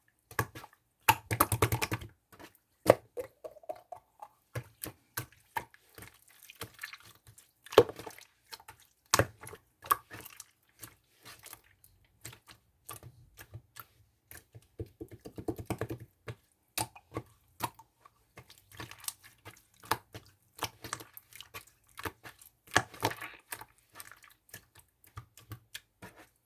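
Slime being squeezed and poked by hand: irregular crisp clicks and pops, with a few denser bursts of crackly squishing.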